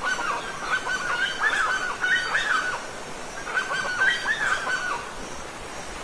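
A bird calling in two rapid bouts of short, falling notes over the steady rush of a waterfall.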